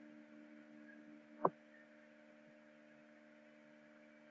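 Faint steady electrical hum on the recording, with a single short computer mouse click about one and a half seconds in, as journal filters are ticked in the database.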